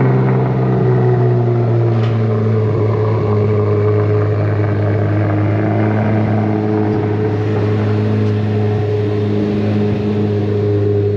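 C8 Corvette Z06's flat-plane-crank V8 idling steadily through its custom exhaust, the idle easing slightly lower over the first few seconds.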